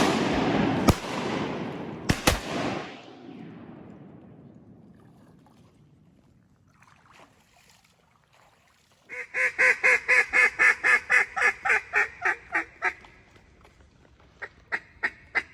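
Several shotgun shots within about two and a half seconds, their report echoing and fading over the next few seconds. After a lull, a long, loud run of evenly spaced mallard-style quacks, about four a second, and a few shorter quacks near the end.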